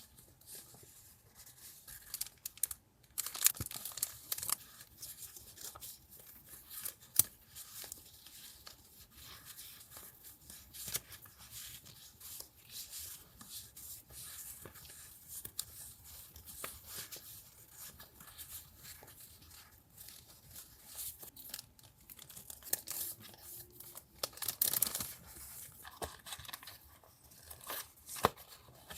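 Paper being torn and rustled by hand, with scattered small taps and clicks from handling. The longest, loudest stretches of tearing come a few seconds in and again near the end.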